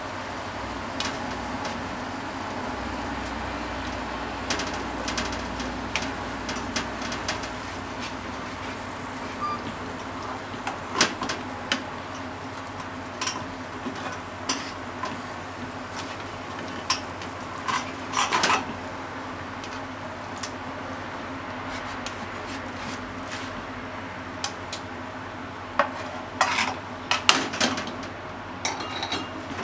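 Sausages and fried eggs sizzling in oil in a frying pan, with scattered clacks and scrapes of a utensil against the pan as the sausages are moved and the eggs are turned.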